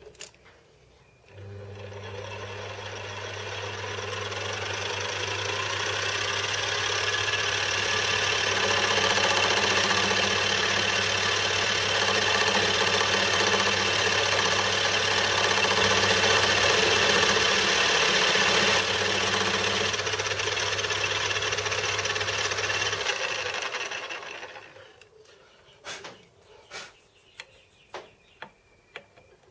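Small benchtop metal lathe starts about a second in and runs for about twenty seconds with a steady motor hum, cutting an aluminium part, the cutting noise building as the tool works. It then winds down and stops, followed by a few light clicks of parts being handled.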